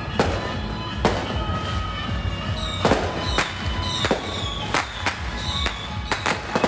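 Firecrackers going off in irregular sharp bangs, about one or two a second, over continuous procession music.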